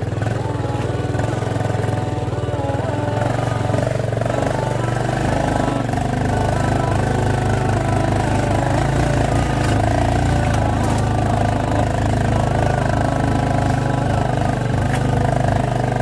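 Small motorcycle engine running steadily under load, climbing a steep, rough dirt track.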